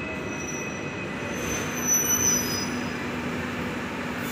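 Hong Kong double-decker electric tram running on street rails: a steady rumble with thin, high-pitched wheel squeal, loudest about two seconds in.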